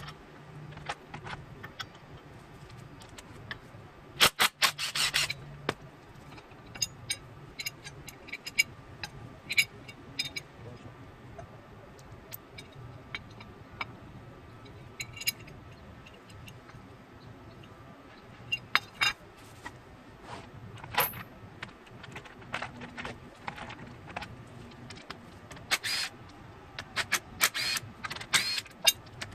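Metal hand tools and engine parts clinking and clattering in irregular bursts as an engine is taken apart, with the busiest clatter about four seconds in and again near the end.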